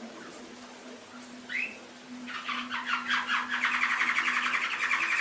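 Domestic canary singing: one short rising chirp, then, a little past two seconds in, a fast trilled song of rapidly repeated notes that grows louder toward the end.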